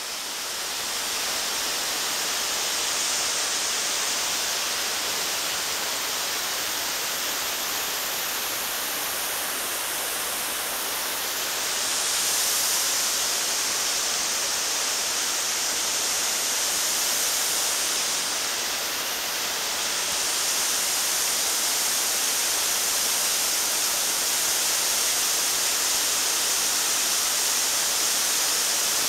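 Waterfall: a steady rushing hiss of falling water, a little louder from about twelve seconds in.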